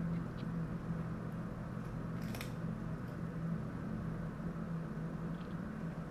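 Steady low hum of room tone, with a couple of faint clicks near the start and a short rustle about two seconds in.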